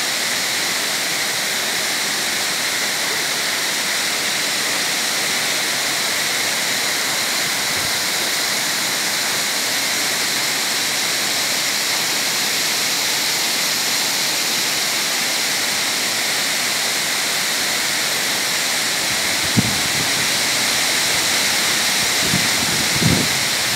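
Broad, multi-tiered waterfall spilling over rock ledges into a pool: a steady, loud rush of falling water. A few brief low thumps come near the end.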